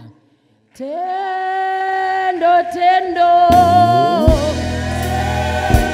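A gospel song starting: a voice holds a long sung note. About three and a half seconds in, instruments join with a deep bass and a few drum hits.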